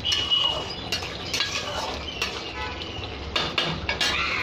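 A spatula stirring thick curry in a metal kadai, with repeated scrapes and knocks against the pan, some ringing briefly.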